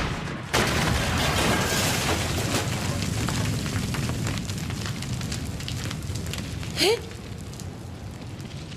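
Anime action sound effects: a sudden loud blast about half a second in, then a rumbling roar that slowly fades, with a short rising whoosh near the seven-second mark.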